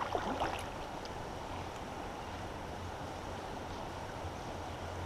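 Steady outdoor background noise on a creek, an even low rush, with a few faint clicks about half a second in.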